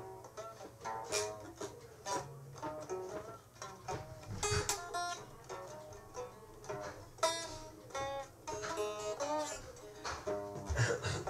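Music played on a plucked string instrument: a run of quickly picked notes, each fading fast.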